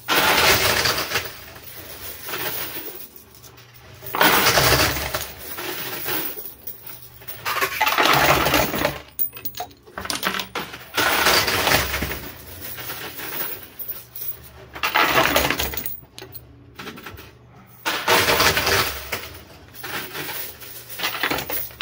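Quarters clattering in a coin pusher arcade machine, in six loud bursts about one every three to four seconds.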